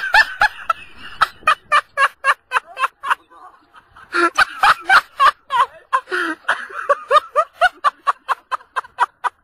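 High-pitched laughter in rapid, gasping bursts of about four to five a second, pausing briefly about three seconds in and then starting up again.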